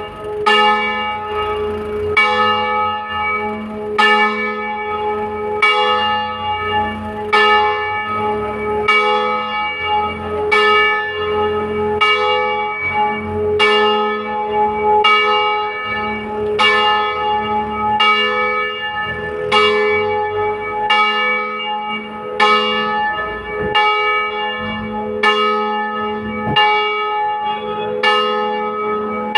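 The second of three electrified Veronese-style church bells swinging in a full peal (distesa). It rings in regular strokes, roughly one a second, each stroke ringing on under the next.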